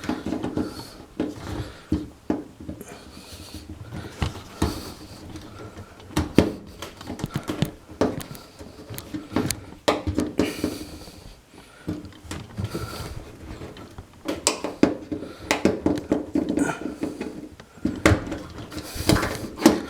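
Handling noise: irregular clicks, knocks and rustling of hands working on parts, with a flurry of quick knocks near the end.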